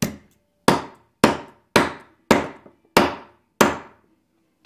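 Claw hammer striking a small blade cut from a drink can laid in the bowl of a metal spoon, seven sharp blows at an even pace a little over half a second apart, each dying away quickly. The piece is being beaten into the spoon's bowl to give it a curve for a lure spinner blade.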